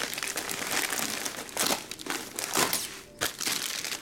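Plastic bubble wrap crinkling and rustling as it is handled, with a couple of sharper crackles partway through.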